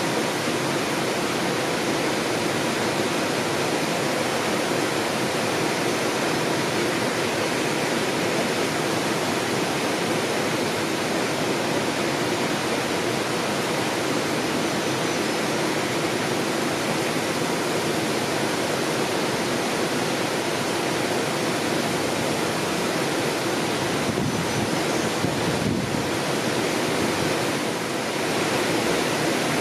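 Steady rushing of flowing water, an even, unbroken noise.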